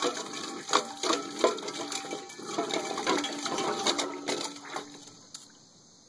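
Puppy pawing and splashing in a stainless-steel water bowl: water sloshing while the metal bowl clanks and rings with each strike. It dies down about five seconds in.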